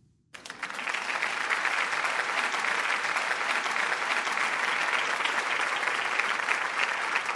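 Audience applauding, breaking out suddenly a fraction of a second in and keeping up steadily.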